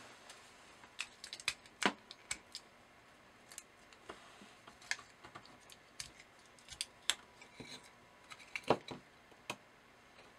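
Irregular sharp clicks and light rattles of two batteries being pushed into the spring contacts of a plastic battery holder on a circuit board, with the board handled. The loudest clicks come about two seconds in and near the end.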